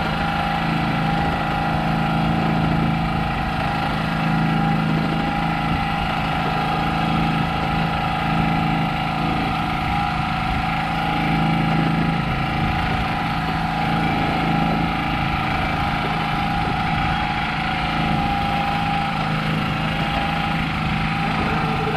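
An engine running steadily at idle on a fishing boat: a constant low drone with a thin steady whine over it.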